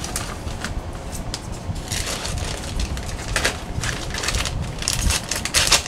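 Plastic bags crinkling and rustling in the hands as vacuum-sealed food packs are put into a second bag, in irregular crackly bursts.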